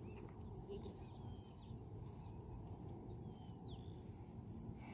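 Several faint, short bird chirps over a low, steady background noise.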